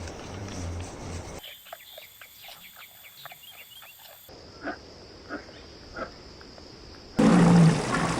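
Several short clips of animal calls cut together with abrupt changes: a low growl-like call, then a run of short rapid calls, then three separate calls about two-thirds of a second apart, and a louder call near the end.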